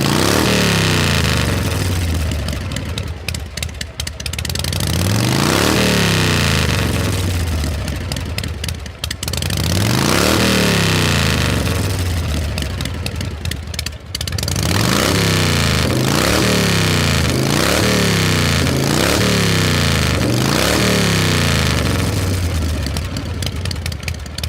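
An engine being revved and let fall back: three long revs several seconds apart, then a quick run of about six short throttle blips, ending abruptly.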